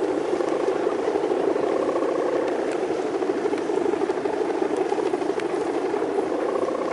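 Steady buzzing drone of the hummer (guangan) on a big Balinese bebean kite, vibrating in strong wind, with a fainter higher tone above it.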